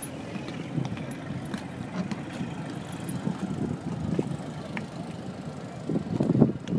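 Boat engine running steadily at idle, a low rumble with a few faint ticks, getting louder and rougher near the end.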